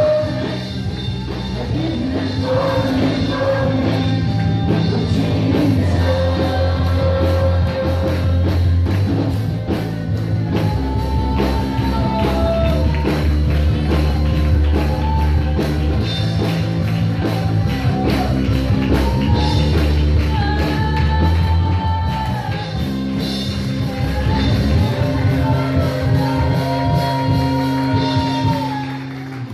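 A mixed youth choir singing a worship song in unison over an accompaniment with bass and drums, the music dropping off near the end.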